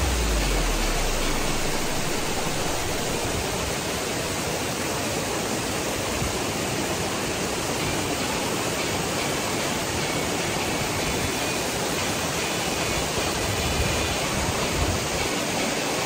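Steady rush of water from Asik-Asik Falls, a curtain waterfall streaming down a moss-covered cliff face, together with the churning rapids of the river at its foot.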